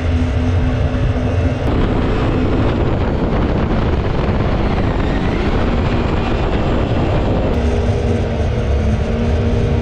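A mini jet boat's 1053cc Yamaha four-stroke engine runs steadily at speed, driving the jet pump, over a constant rush of water and wind. The engine's hum stands out more plainly at the very start and again near the end.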